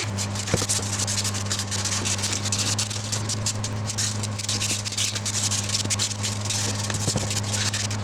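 Sandpaper rubbed by hand over the edge of a segmented utile wood sculpture: a rapid, uneven scratchy rasping. A steady low hum runs underneath it.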